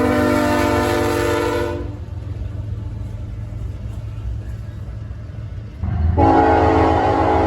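Diesel freight locomotive's multi-chime air horn sounding a long chord that cuts off about two seconds in, then sounding again about six seconds in, over the low rumble of the passing train.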